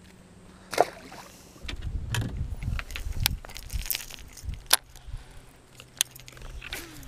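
Scattered clicks and knocks from fishing tackle being handled in a boat, with a couple of seconds of low wind rumble on the microphone.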